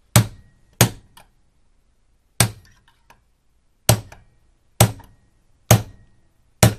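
Large hammer striking the case of a Lumintrail combination lock seven times at uneven intervals, each blow a sharp crack with a faint brief ring after some. The blows are denting and splitting the lock's case without defeating the locking mechanism.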